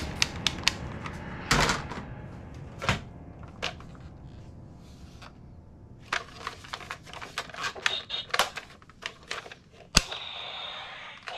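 Toy guns being handled: a series of sharp plastic clicks and clacks, thickest in a quick run in the second half, with one loudest snap near the end.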